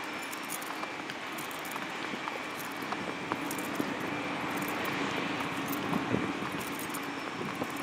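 Steady outdoor drone of a distant engine over a hiss of open-air ambience, swelling slightly in the middle, with faint scattered ticks.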